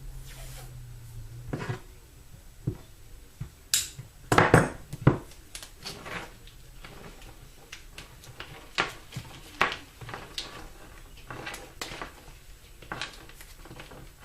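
Vinyl electrical tape being pulled off the roll and wrapped around a plastic split-loom wiring harness: short scratchy peeling strips and clicks of handling, loudest and most bunched together about four to five seconds in.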